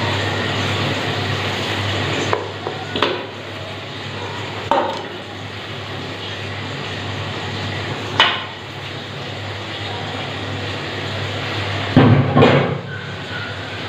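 Kitchen utensils and cookware knocking a handful of times over a steady background noise. The loudest knocks come in a quick cluster near the end.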